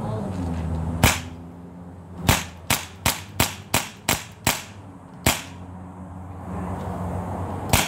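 A BB gun firing about ten sharp snapping shots. There is a single shot, then a quick run of seven at roughly three a second, then two more spaced well apart.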